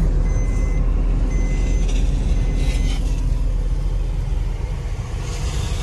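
Car engine and tyre noise heard from inside the cabin while driving: a steady low rumble, with a short swell of hiss about five seconds in.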